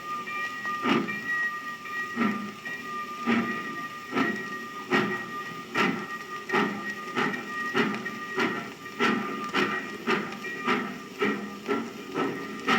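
Steam locomotive pulling away, its exhaust chuffs starting about a second apart and speeding up to about two a second, over a thin steady high tone. Heard as a sound effect on a 1952 78 rpm record.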